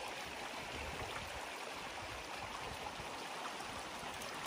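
Creek water running steadily over rocks and through a shallow granite pool, an even rush with no breaks.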